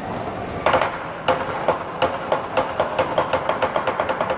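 Chinese lion dance drum and cymbals: a crash about half a second in, another just after a second, then beats that come faster and faster, reaching about five a second near the end, over a steady ringing tone.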